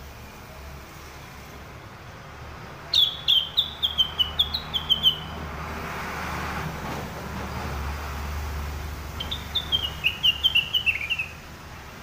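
A caged rengganis (cucak wilis) singing two loud phrases about six seconds apart. Each phrase lasts about two seconds: a quick run of about five clear, high notes a second that steps down in pitch.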